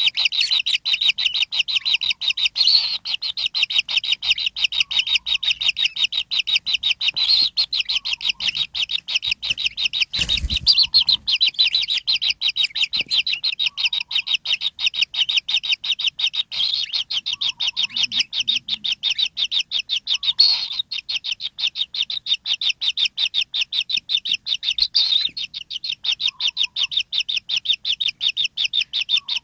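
Kingfisher nestlings in a burrow nest giving a rapid, unbroken series of high begging chirps, several a second. A dull thump about ten seconds in.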